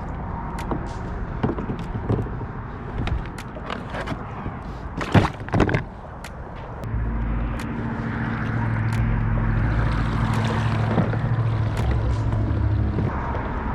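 Wind buffeting the camera microphone, with scattered clicks and knocks from handling gear on the kayak, a loud double knock about five seconds in, and a steadier low rumble from about seven seconds in.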